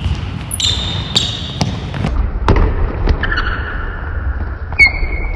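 A basketball bouncing on a hardwood gym floor in sharp single bounces, mixed with sneakers squeaking on the court in drawn-out high squeals. The loudest squeal comes near the end.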